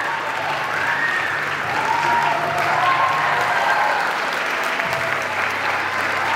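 Theatre audience applauding steadily through curtain-call bows, with voices calling out over the clapping.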